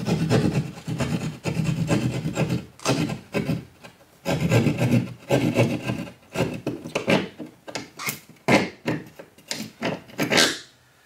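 Keyhole saw cutting through drywall by hand, a rasping back-and-forth of saw strokes. The strokes are longer at first and get shorter and quicker in the second half, stopping near the end.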